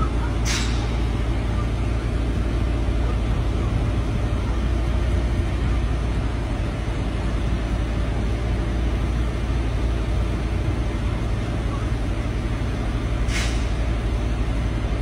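Semi trucks idling with a steady low diesel rumble, and two short hisses of air let out of truck air brakes, one right at the start and one near the end.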